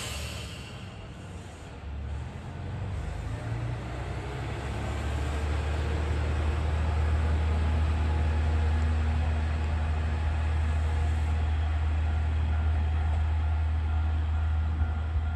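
Diesel railcar: a short hiss of air at the start, then its engine rising to a steady low drone as it powers along.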